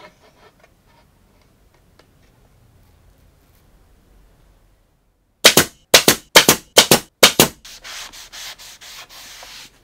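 A rag rubbing on a glued-up MDF strip to wipe off glue squeeze-out: five loud rubbing strokes about two-fifths of a second apart, then a quicker run of softer rubbing. A few faint light taps come first, as the MDF pieces are handled on the bench.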